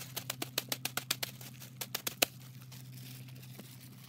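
Plastic wrapper of an instant ramen noodle package crinkling as it is torn open and handled, a quick run of sharp crackles that stops about two seconds in.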